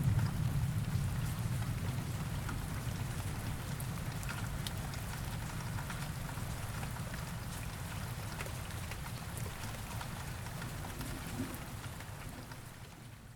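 Steady rain falling, with scattered drop ticks over a low thunder rumble that dies away over the first seconds. The rain fades down near the end.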